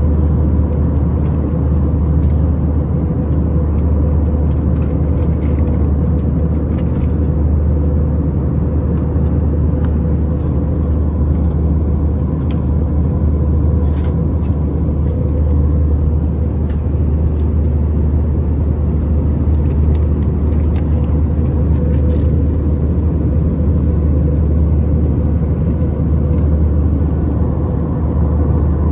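Steady cabin noise of a jet aircraft in cruise flight: a constant low rumble of engines and rushing air with a faint even hum. A few faint ticks sound here and there.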